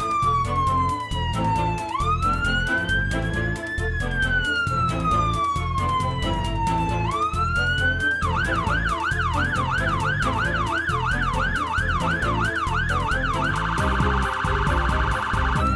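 Emergency vehicle's electronic siren: a slow wail sweeping down and back up, switching about eight seconds in to a yelp of about three quick sweeps a second, then to a rapid warble before the slow wail returns near the end.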